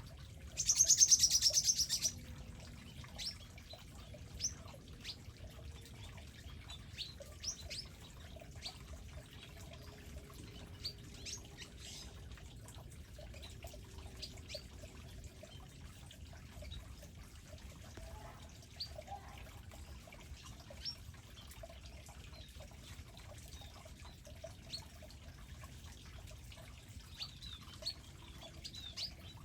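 Small songbirds at seed feeders calling, with short high chirps scattered throughout; a loud, buzzy high trill lasts about a second and a half near the start and comes again at the end.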